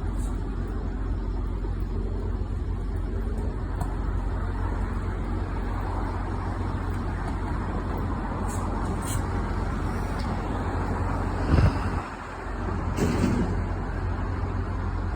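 Steady low engine rumble. A brief thump comes about eleven and a half seconds in, and a short hiss follows about a second later.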